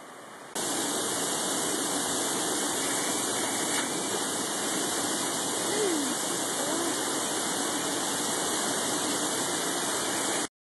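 Small waterfall pouring into a rock pool, a steady rush of water. It comes in suddenly loud about half a second in and stops abruptly just before the end.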